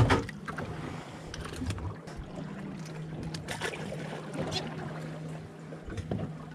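A hooked fish splashing at the surface beside the boat at the start, then a steady low hum with scattered light clicks and water sounds.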